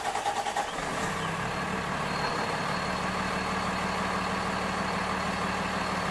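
Large vehicle engine idling steadily, settling into an even idle about a second and a half in, with a faint high steady whine.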